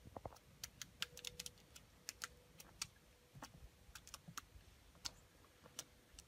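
Faint, irregular clicks and ticks, some single and some in quick clusters, over near quiet.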